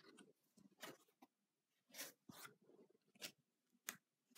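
Near silence with a few faint, short rustles and taps of paper pages being handled in a spiral-bound sketchbook.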